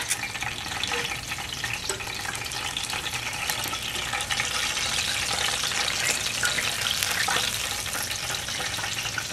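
Hot oil sizzling and crackling steadily in a cast-iron skillet as breaded chicken thighs fry.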